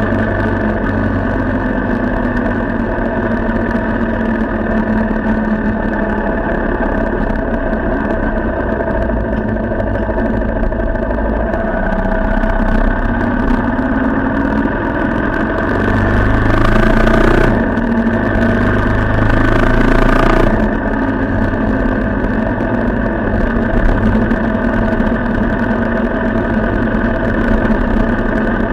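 A vehicle engine running steadily, growing a little louder for a few seconds past the middle.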